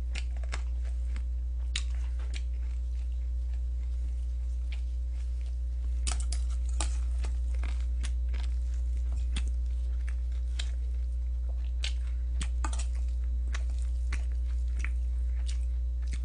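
Eating sounds: scattered chewing and small clicks as a spoon scoops rice from a stainless steel bowl, over a steady low electrical hum.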